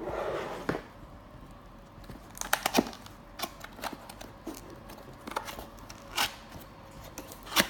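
A cardboard box being handled and opened by hand: a short sliding scrape of the lid at the start, then scattered taps, clicks and rustles of cardboard.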